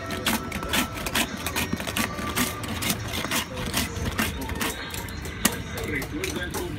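Hand-held metal ice shaver scraped in quick strokes across a block of ice, about three scraping strokes a second, shaving ice for snow cones. The strokes stop about four and a half seconds in, and a single sharp knock follows.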